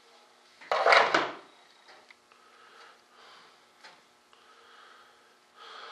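Short clatter of a pair of scissors set down on a work table about a second in, followed by faint handling sounds.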